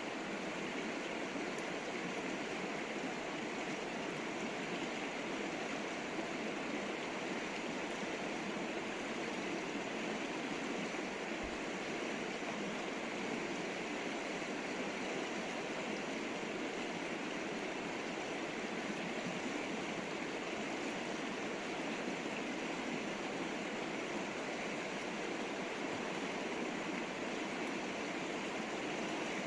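River water rushing and flowing steadily.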